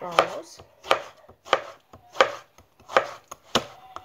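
Kitchen knife slicing a tomato on a plastic cutting board: six even cuts, each a sharp knock of the blade on the board, about two thirds of a second apart.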